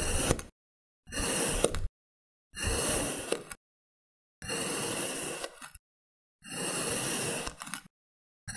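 Knife blade slicing thin layers off a cone of pink kinetic sand: each slice is a grainy, scraping hiss about a second long, with dead silence between slices. Four full slices are heard, the end of one just at the start and a new one beginning near the end.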